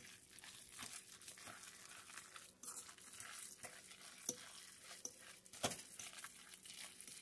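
Faint wet squishing of raw ground-beef meatloaf mixture being stirred with a fork in a bowl, with a few sharper clicks.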